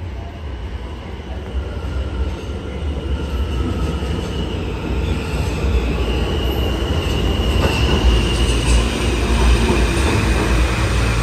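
New York City subway train of R160 cars pulling into an underground station: a low rumble of wheels on rail that grows steadily louder as the cars come alongside, with a high wheel squeal setting in about halfway through.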